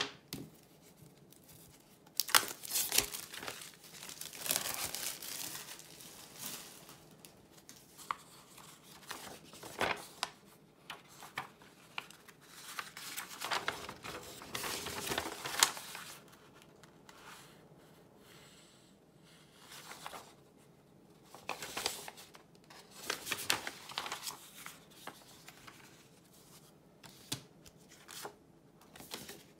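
Paper instruction sheets rustling and crinkling as they are unfolded and handled, in bouts of a few seconds with quieter gaps between. There are a few short taps as the cardboard packaging and thin plywood sheets are set down on the table.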